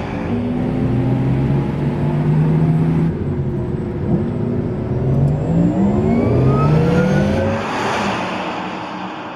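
Porsche Taycan Cross Turismo's electric drive accelerating, its whine rising in pitch with tyre and road noise underneath.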